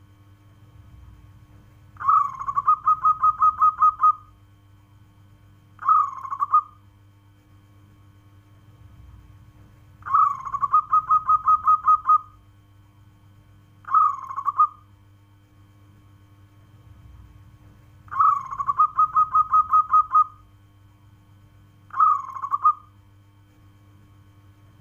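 Zebra dove (local perkutut) calling. A rapid run of about eight short cooing notes is followed about two seconds later by a single short coo. The pair repeats three times, roughly every eight seconds.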